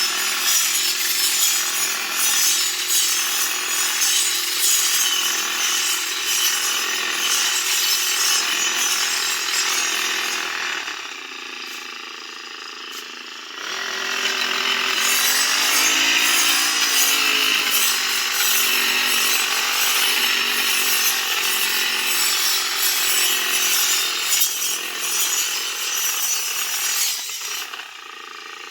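Engine-driven grass cutting machine running and cutting, a dense hissing cutting noise over a steady engine note. The noise dies down for about three seconds around the middle, then comes back with the engine pitch rising and falling before it settles again.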